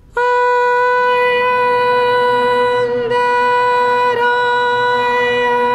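A mantra intoned on one long-held note that starts suddenly, with brief breaks about three seconds in and again a second later.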